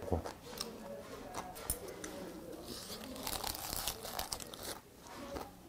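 Close-up mukbang eating sounds: a few sharp clicks of chopsticks against dishes, then a lettuce wrap of boiled pork and skate pushed into the mouth and chewed with wet, crisp crunching about three seconds in.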